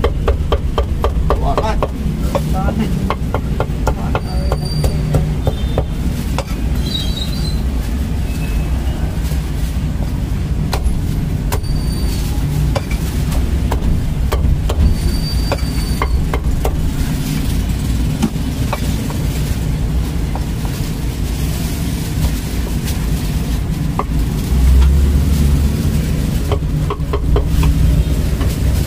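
Meat cleaver chopping roast pork and duck on a thick wooden chopping block: irregular knocks, some in quick runs, over a steady low rumble that swells louder about 25 seconds in.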